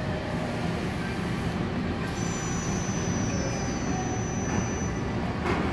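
Steady low hum and rumble of factory-floor background noise from machinery and ventilation, with a faint high whine in the middle.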